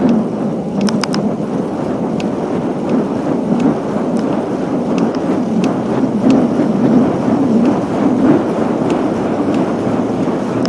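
Wind rushing over the camera microphone while riding a road bike: a steady low rumble, with faint sharp clicks here and there.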